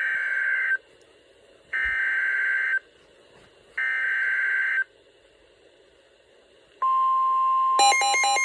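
Emergency Alert System SAME data header: three identical digital bursts of about a second each, two seconds apart. It is the coded start of a new alert. Near the end a steady single-tone weather-radio warning alarm begins, and about a second later a rapidly pulsing alarm joins it.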